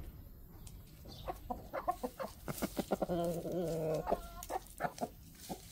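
Chickens clucking at close range: a run of short clucks, then one drawn-out wavering call lasting about a second, three seconds in, then more short clucks.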